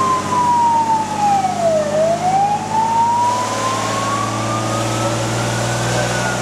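Fire engine siren in a slow wail, heard from inside the cab over the Magirus-Deutz truck's diesel engine: the tone falls to a low point about two seconds in, climbs slowly, and starts falling again near the end. It is the warning signal of a fire engine driving on an emergency call.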